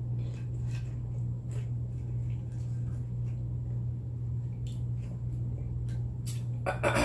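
Close-up chewing of guacamole-flavoured tortilla chips: irregular soft crunches and wet mouth sounds. A short, louder voiced sound comes near the end.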